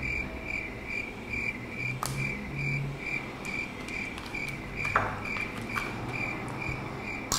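Cricket chirping steadily, short even chirps about two and a half times a second, stopping near the end, with a couple of faint clicks of plastic handling.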